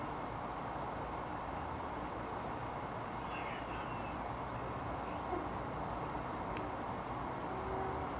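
Crickets chirring outdoors at night: a steady, continuous high trill over a faint background hiss.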